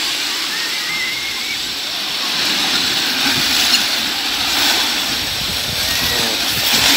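Metal roller slide rattling steadily under a rider going down it, the rollers spinning in a continuous rolling clatter.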